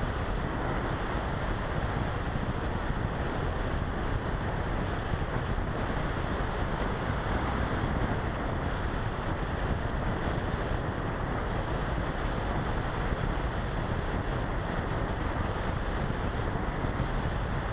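Steady rushing airflow buffeting the small onboard camera's microphone of an RC model glider in flight, a rumbling noise with no distinct motor tone.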